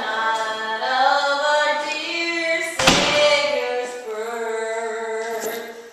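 A woman singing a Christmas carol unaccompanied, holding long drawn-out notes that glide from one pitch to the next. About three seconds in, a short rush of noise breaks in.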